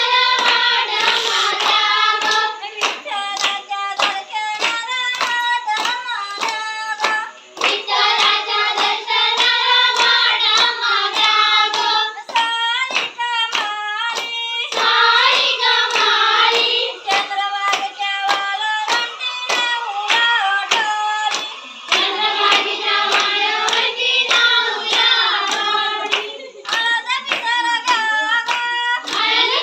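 Women's voices singing a Konkan folk dance song together, over steady hand claps at about two a second that keep the beat.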